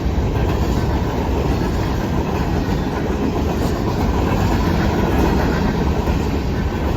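Norfolk Southern manifest freight train's cars rolling past: a loud, steady rumble of steel wheels on the rails.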